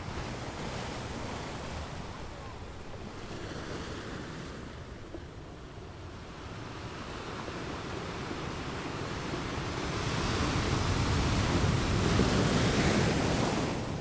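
Muffled rushing water noise heard underwater just below the sea surface, steady at first and growing louder about ten seconds in.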